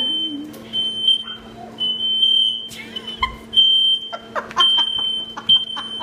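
Smoke alarm sounding: a high-pitched electronic beep repeating in pulses of roughly half a second to a second with short gaps. A few knocks come around the middle.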